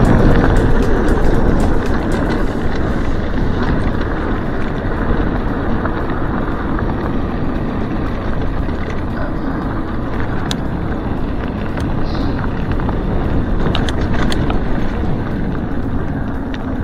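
Mountain bike riding fast over a dirt and gravel track: wind rushing over the handlebar camera's microphone and tyres rolling on the loose surface, loudest in the first couple of seconds, with scattered clicks and rattles from bumps.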